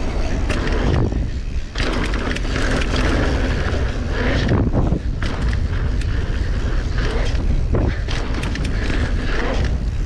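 Mountain bike riding down a dirt trail: tyres rolling and skidding over dirt with the bike rattling and knocking over bumps, under a steady low rumble.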